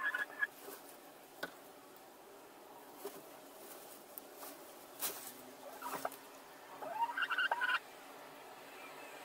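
Two domestic hens shifting in a straw nest box: straw rustling and scratching, a brief hen call at the start and a longer, rising call about seven seconds in, from hens crowding for the same nest.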